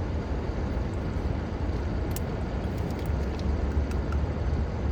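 Steady low hum of a parked car running, heard from inside the cabin, with a few faint small clicks over it.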